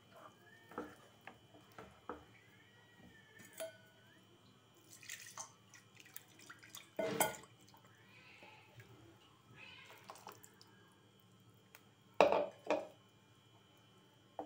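Spatula stirring a thick, wet chilli sauce in a pan: wet plopping and squelching, with scattered knocks of the spatula against the pan. One strong knock comes about seven seconds in, and the two loudest come close together about twelve seconds in.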